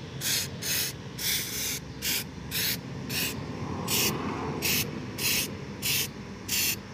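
Aerosol can of truck bed coating sprayed in short hissing bursts, about two a second, as the nozzle is pressed and released repeatedly.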